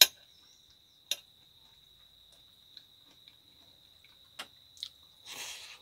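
A metal fork clinks sharply against a ceramic plate a few times and scrapes briefly through food near the end. Behind it an insect's steady, high-pitched call goes on without a break.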